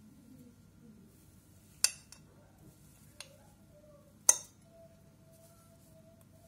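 A metal fork clinking against a porcelain plate while cutting a slice of chocolate cake: two sharp clinks about two and a half seconds apart, with a fainter tap between them.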